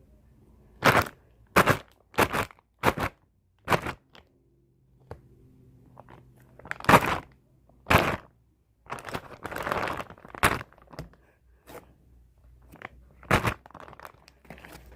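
Sticky slime being stretched and squished by hand: a string of about ten short, sharp pops, with a longer crackly stretch about ten seconds in.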